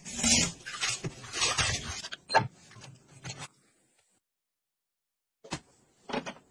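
Water splashing from a kitchen tap as strawberries tumble from a plastic basket into a colander in the sink, for about two seconds, then a few light clicks. After about two seconds of dead silence, a couple of light knocks come near the end.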